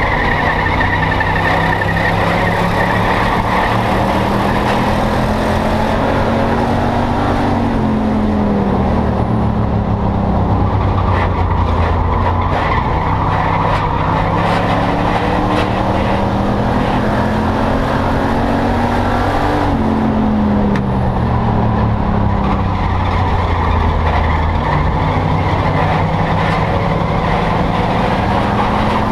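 Enduro stock car's engine at racing speed, heard from inside the cockpit. Its pitch climbs slowly along each straight and drops quickly as the car backs off for the turns, twice, then starts climbing again near the end, over constant road and wind noise.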